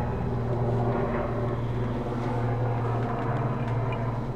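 A steady low mechanical hum with a rumble underneath, holding an even level throughout.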